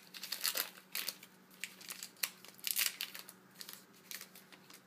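Foil wrapper of a baseball card pack crinkling in the hands, in short irregular bursts, as the cards are pulled out and handled.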